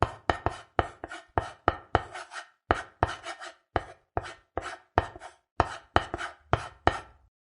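A series of sharp chopping knocks, about three a second in loose groups, each with a short ring.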